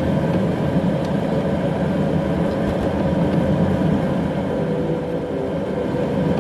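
Car engine and tyre noise heard from inside the cabin while driving on a wet mountain road: a steady low rumble.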